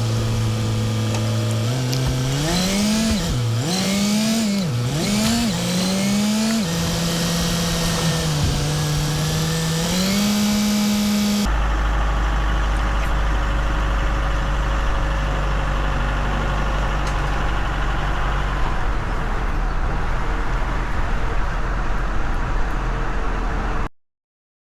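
An engine running and revving up and down several times, then holding a steady speed. After a cut, a steady deep engine rumble runs on until it cuts off abruptly near the end.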